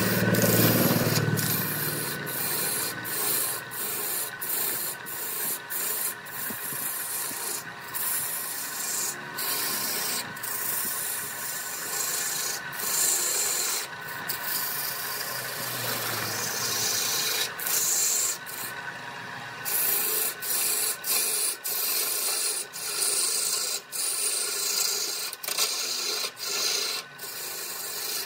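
Turning tool cutting into a large wooden cylinder spinning on a lathe: a continuous scraping hiss as shavings peel off, broken by many brief gaps where the tool lifts off the wood.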